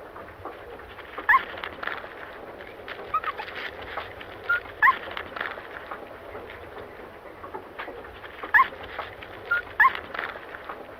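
Agouti squeaking: short, high squeaks that each rise in pitch, singly and in pairs a second or a few seconds apart, over a steady crackly rustle.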